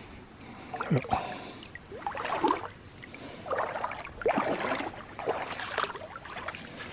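Shallow lake water splashing and sloshing in a string of irregular bursts, several with a short falling gurgle.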